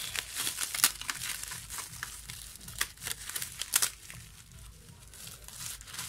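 Plastic bubble wrap crinkling as it is handled and pulled open by hand, with a few sharper, louder crackles about a second, three seconds and nearly four seconds in, then softer rustling.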